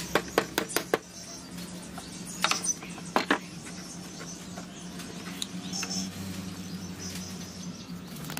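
A hammer tapping nails into a small strip of wood: about five quick strikes in the first second, then a few more about two and a half and three seconds in.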